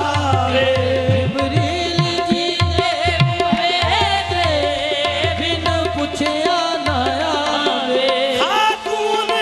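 Qawwali music: harmoniums holding steady chords under tabla strokes, while a lead singer sings wavering, ornamented vocal runs.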